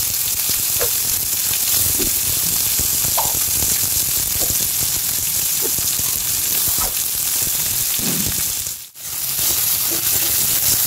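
Sliced onions sizzling steadily in hot oil in a kadai, just added and starting to fry. They are stirred near the end, and the sound drops out briefly about nine seconds in.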